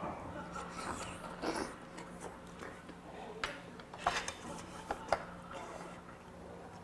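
Chewing and mouth sounds from eating a piece of boiled chicken, then a few sharp clicks of chopsticks against porcelain bowls between about three and five seconds in, over a faint steady hum.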